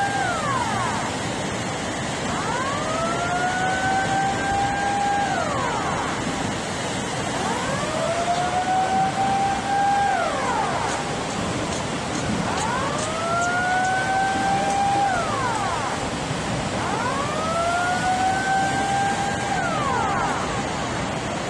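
A siren wailing in cycles about every four and a half seconds: each cycle rises in pitch, holds steady for about two seconds, then drops sharply. Under it runs a steady rush of churning tsunami water.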